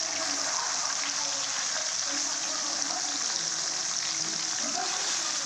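Pieces of fish frying in hot oil in a kadai, with a steady, even sizzle and fine crackling.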